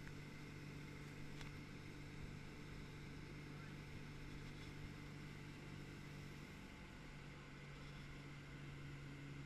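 Motorboat engine running steadily while towing a water skier, a constant low hum under the hiss of water and wake.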